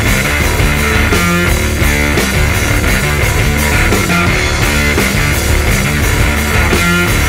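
Stoner rock band recording: electric guitar, bass and drums playing a heavy, steady riff.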